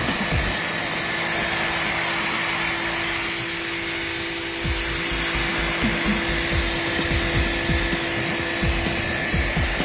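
WestForce electric pressure washer running and spraying: a steady motor hum with a constant whine over the hiss of the water jet, with irregular low rumbles underneath.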